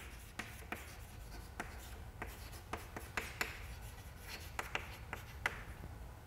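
Chalk writing on a chalkboard: a run of irregular taps and short scratches as a line of words is written.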